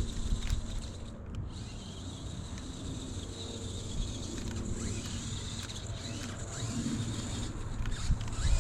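Electric motors and gearbox of a 1:12 scale 4WD RC monster truck whirring as it drives, with its tyres rumbling over the ground.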